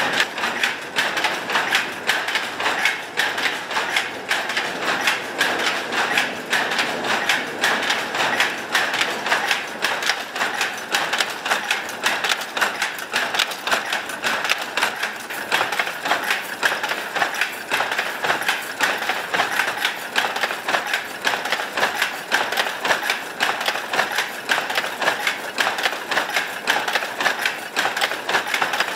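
Belt-driven Toyoda automatic power loom running, clacking in a fast, even rhythm of about three to four beats a second as the shuttle is thrown and the reed beats up each pick, over a steady whir of its drive.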